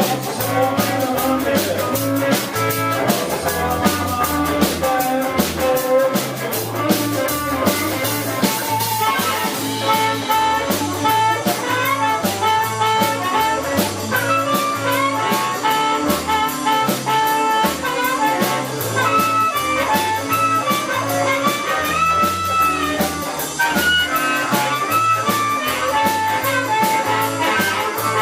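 Live blues band playing an instrumental passage: drum kit with heavy cymbal wash for the first several seconds, a walking bass line, and a lead line of held and bending notes.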